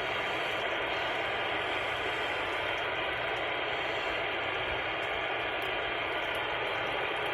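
Steady hiss of static and band noise from an AnyTone AT-6666 CB radio's speaker, with no station transmitting on the channel.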